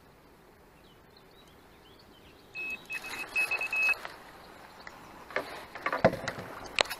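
Electronic carp-fishing bite alarm sounding a run of high beeps at one pitch, a longer one and then several quick short ones, signalling line being taken on the ledger rod. A few sharp knocks and clicks of handling follow near the end.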